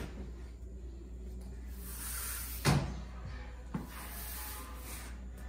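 Rubber floor squeegee being dragged across wet wall putty to smooth it: a soft scraping, with one sharp knock a little before halfway and a lighter click about a second later.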